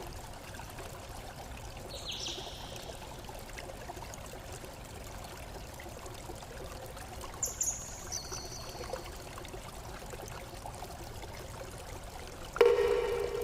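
Water running steadily, like a small stream, with a few brief high chirps. Near the end a sudden loud sound with a ringing tone cuts in.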